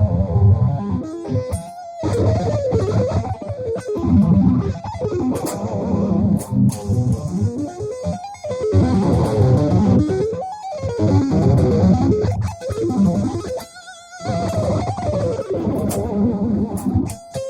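Electric guitar playing fast shred runs: rapid strings of notes climbing and falling in arcs, broken by a few short pauses between phrases.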